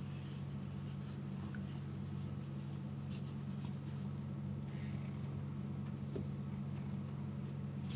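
Hands rubbing and scratching a tortoiseshell cat's fur, a soft scratchy rustle over a steady low hum.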